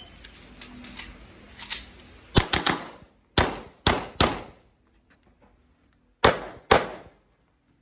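Pistol-caliber carbine firing in quick strings: three fast shots about two and a half seconds in, three more over the next second or so, then a pair about six seconds in.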